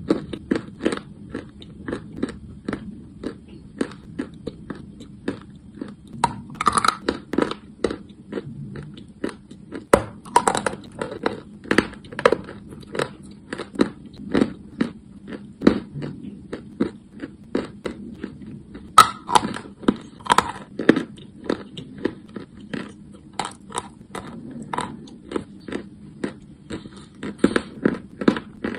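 Chalk being bitten and chewed close to the microphone: steady crunching, a few crunches a second, with now and then a louder bite.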